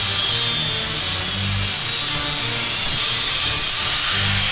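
Angle grinder cutting through a motorcycle drive chain: a loud, steady grinding screech of abrasive disc on steel, its highest part dropping away near the end.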